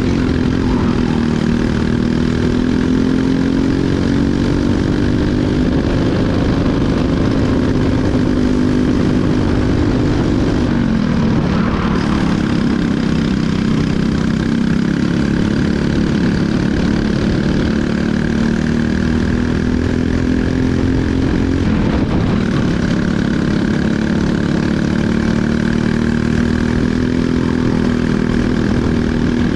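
Briggs & Stratton LO206 four-stroke single-cylinder kart engine running hard at race pace, heard from on board the kart. Its pitch falls sharply as the driver lifts for corners about eleven seconds in and again about twenty-two seconds in, then climbs back as it accelerates out.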